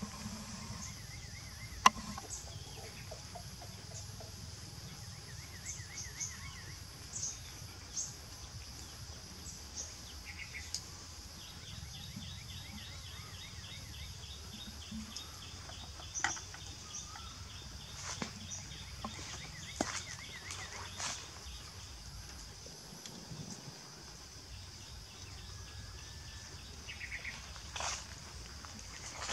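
Outdoor ambience: a steady high drone of insects with birds calling over it in short trills and runs of quick repeated notes. A few sharp knocks sound through it, the loudest about two seconds in.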